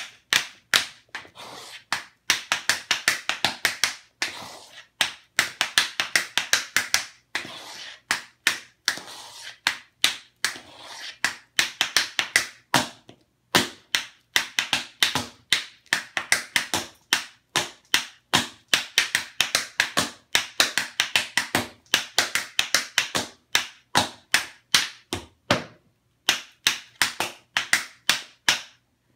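Metal taps on tap shoes striking a hard tile floor in a fast, rhythmic tap-dance routine, with quick runs of closely packed taps between single accented strikes and a short pause near the end.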